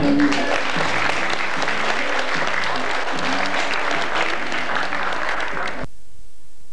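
Audience applauding, a dense patter of many hands clapping. About six seconds in the applause cuts off suddenly as the VHS recording drops out, leaving a low hum and a faint steady tone.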